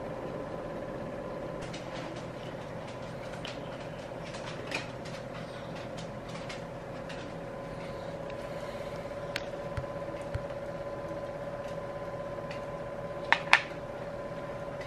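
A steady hum that holds one pitch, with a few scattered light clicks and taps over it; the loudest is a quick double click near the end.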